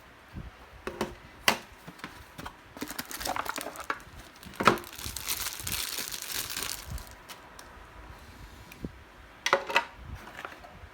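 Packaging being handled, crinkling and rustling, with a few sharp clicks and knocks; a longer, denser crinkle comes about five seconds in and lasts a couple of seconds.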